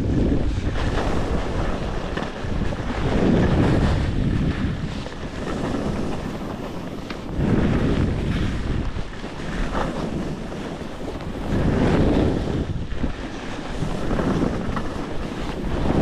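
Wind buffeting the microphone while skiing down a mogul run, a heavy rushing that swells and eases every few seconds, with skis scraping over the snow.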